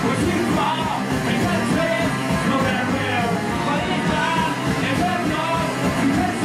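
Live punk rock band playing: electric guitars and drums, with a singer shouting and singing over them.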